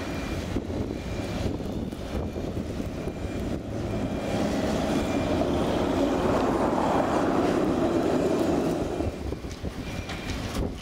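A V3A articulated tram passing close by: a rumble of wheels and motors that builds to its loudest midway, then falls away about nine seconds in.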